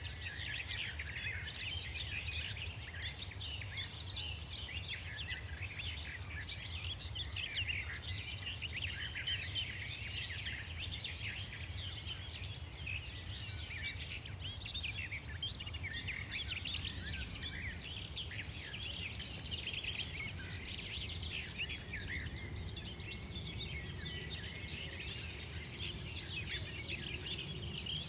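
Many small birds chirping at once in a dense, overlapping chorus of quick high chirps that never lets up, over a steady low rumble.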